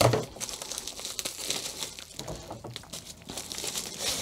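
Crinkling and crackling of a plastic bubble mailer as it is cut open and handled, the crackles coming in an irregular scatter. The loudest crackle is right at the start.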